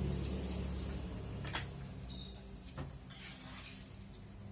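A few light clicks and knocks of kitchen utensils over a steady low hum, with a brief hiss near the middle.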